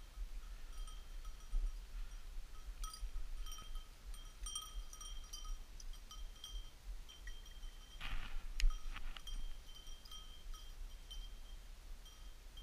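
A small bell on a hunting dog's collar tinkling in irregular bursts as the dog moves. About eight seconds in comes a brief rustle with a couple of sharp clicks, the loudest moment.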